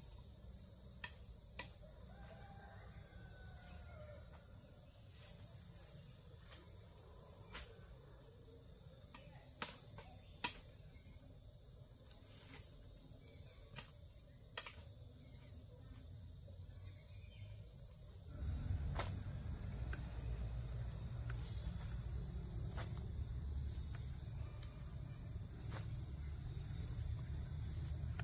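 Insects trilling in a steady, unbroken high-pitched drone, with a few sharp clicks or taps scattered through, the loudest about ten seconds in. A low rumble comes in about two-thirds of the way through.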